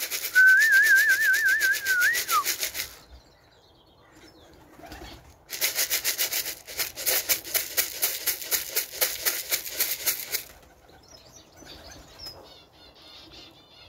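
Rapid, even rattling of pigeon feed being shaken in a tin to call the birds in, in two long spells with a pause between. A warbling whistle sounds over the first rattling for about two seconds.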